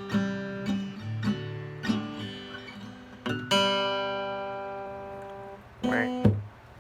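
Acoustic guitar strumming the closing bars of a song. A chord about halfway through is left to ring and fade, and then a last short strum is damped off abruptly, ending the song.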